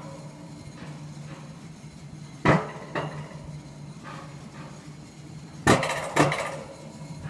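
Alpine coaster sled being hauled up the lift hill on its metal rail track, with a steady low hum from the lift. Loud metallic clacks come in pairs about half a second apart, twice in a regular rhythm.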